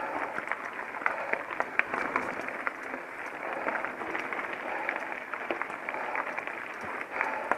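Mountain bike rolling over a rough, stony trail: a continuous crunch of tyres on gravel with many sharp clicks and rattles from the bike.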